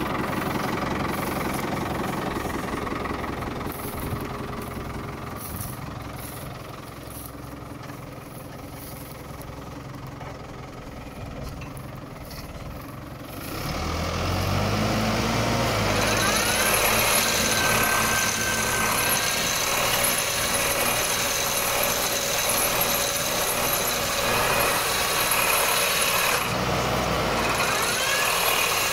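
Engine driving a HASATSAN H 4000 olive trunk shaker, running lower for the first half. About halfway through it picks up sharply as the shaker starts vibrating the tree, and from then on a steady mechanical drone runs under a dense rattle of shaking branches and leaves.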